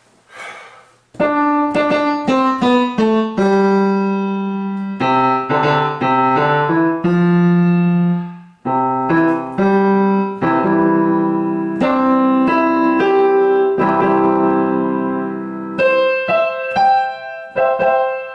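Electronic keyboard instrument being played after a wiring repair: a few clicks, then a falling run of notes followed by chords and held notes. It sounds out properly, showing that the crossed pair of wires on the jack board has been corrected.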